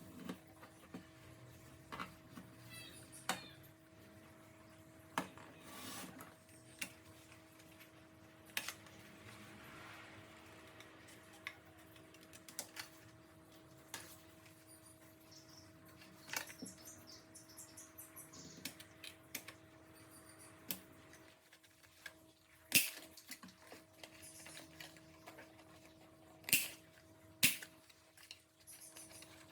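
Scattered light clicks and taps of small parts being handled on a workbench, a few sharper knocks near the end, over a faint steady electrical hum.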